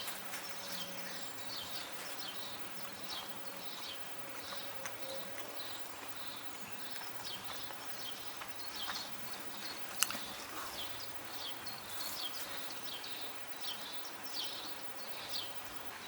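A bird chirping over and over, about two short high chirps a second, over faint background noise, with a single sharp click about ten seconds in.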